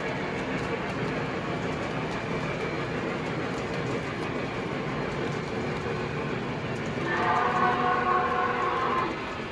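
Model train running on its track with a steady rumble of wheels and motor. About seven seconds in, it sounds a steady signal blast lasting about two seconds.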